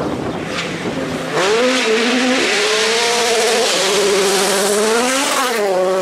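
A World Rally Car's 1.6-litre turbocharged four-cylinder engine approaching at high revs, getting loud about a second and a half in; its fast-wavering pitch dips and climbs again with gear changes near the middle and the end.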